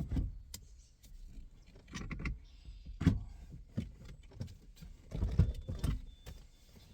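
Irregular knocks, clunks and light rattles of a car steering wheel and its parts being handled and fitted onto the steering column, loudest about three seconds in and again near the end.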